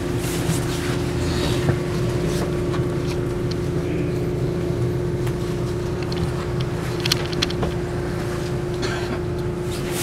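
R62A subway car standing at a station with a steady hum from its onboard equipment over a low rumble, with a few faint clicks and knocks.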